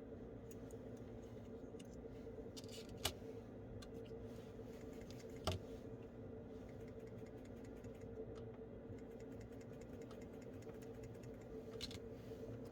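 Faint steady hum with scattered light clicks and ticks, and two sharper clicks about three and five and a half seconds in.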